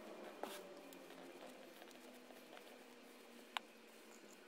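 Faint rustle of coarse sawdust flakes being pressed down by hand into a metal can, with a small tick about half a second in and a sharper one about three and a half seconds in.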